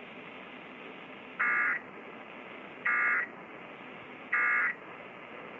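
Three short bursts of Emergency Alert System digital data tones (SAME code), each under half a second and about a second and a half apart: the end-of-message code that closes an EAS test. A steady radio hiss runs underneath.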